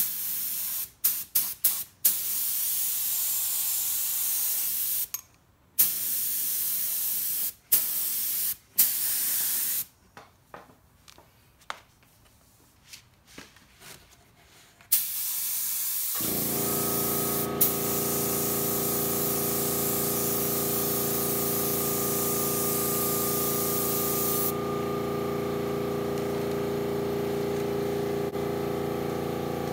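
Iwata LPH 80 spray gun hissing in bursts of air and paint as the trigger is pulled and released, several short ones and then passes of a few seconds. About sixteen seconds in, the 2.6-gallon air compressor kicks on, as it does when spraying draws the tank down, and runs with a steady hum; the spray hiss stops about eight seconds later while the compressor keeps running.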